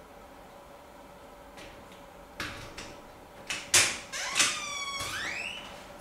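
A door being opened: several clicks and knocks of the latch and handle, then a creaking hinge whose pitch slides down and back up.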